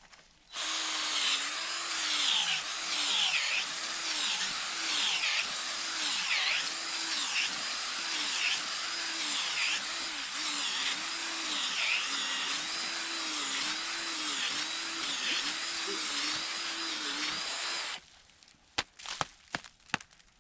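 Power drill running for about seventeen seconds, its motor pitch rising and falling again and again as the bit bites into firm ground while a hole is bored. It stops abruptly near the end, followed by a few knocks.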